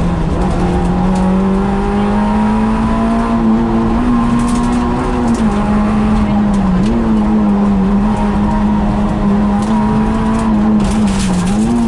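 Peugeot 106 rally car's four-cylinder engine heard from inside the cabin, running hard at high, fairly steady revs, with brief dips in pitch a few times.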